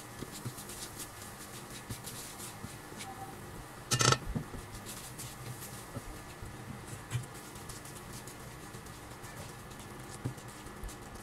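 Silicone spatula stirring and scraping sugar and water in a stainless steel pan as it cooks down toward caramel, with scattered small clicks and scratching. A louder knock of the spatula against the pan about four seconds in.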